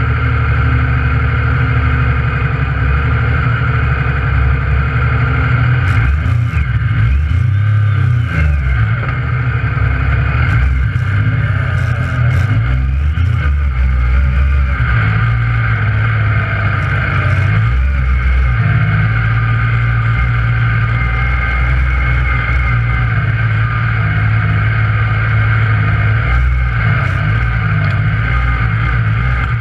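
Yamaha YXZ1000R side-by-side's three-cylinder engine running under load through thick mud in four-wheel drive, heard from inside the cab. The engine note shifts up and down, with a stretch of sharp clattering about six to thirteen seconds in.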